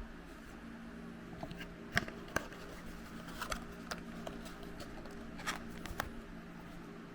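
Scattered light clicks and taps of small plastic toys and packaging being handled, the loudest about two seconds in, over a low steady hum.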